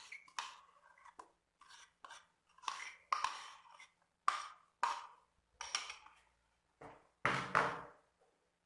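A kitchen utensil scraping and knocking against a mixing bowl in short, irregular strokes while a foamy yogurt mixture is added to cake batter. The loudest stroke comes near the end.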